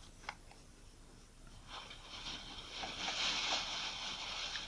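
A cotton swab wet with fungus-removal solution is being rubbed over a camera lens's rear glass element, making a soft scratchy hiss. The hiss starts about two seconds in and grows louder, after a single small click near the start.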